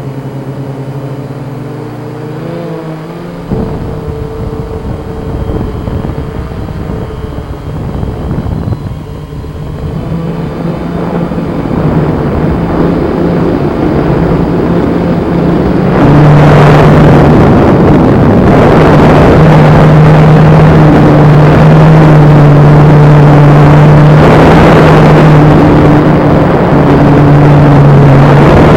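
Blade Chroma quadcopter's motors and propellers humming in flight, the pitch shifting as the throttle changes. About 16 seconds in, a loud rushing noise joins in and stays to the end.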